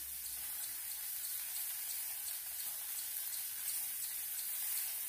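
Steak and slices of haloumi sizzling on a hot Blackstone flat-top griddle as the cheese is laid on: a steady hiss with faint pops.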